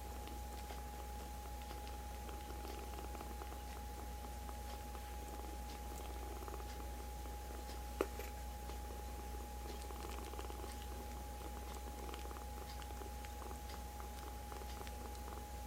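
Kittens purring close up, a steady low rumble with faint soft ticks. There is one sharp click about halfway through.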